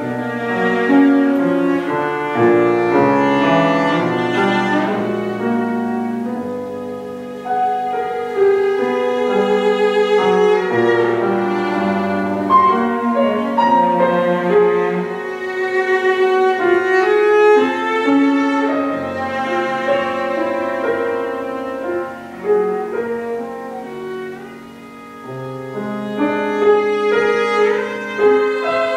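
Cello and piano playing a classical chamber piece live: the cello's bowed melody carries over the piano's accompaniment, easing to a softer passage near the end.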